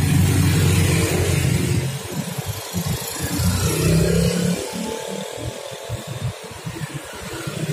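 Motor scooters passing close by one after another, their small engines running and accelerating away. The loudest passes come in the first two seconds and again around four seconds in, the second with a rising engine pitch.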